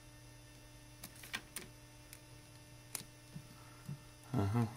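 Faint small clicks of multimeter probe tips being worked against the metal pins of a stator plug connector, several times and at uneven intervals, while the probes are not yet making good contact. A steady electrical hum runs underneath, and near the end a man's voice hums.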